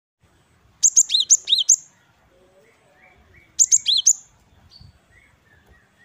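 Gelatik batu (cinereous tit, the Javan form of the great tit, Parus major) singing its 'wucit-wucit' song. It gives two quick bursts about three seconds apart, each a rapid run of sharp high notes with lower slurred notes between them.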